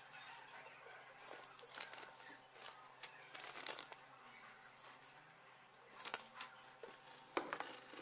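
Quiet handling sounds from unboxing a mobile phone: soft rustles of packaging with scattered light clicks and taps, a few sharper ones near the end.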